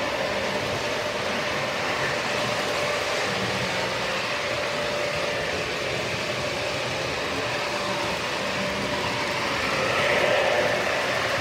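Model trains running on the layout's track: a steady rolling rumble of wheels and motors, swelling briefly near the end as a Conrail diesel locomotive passes close.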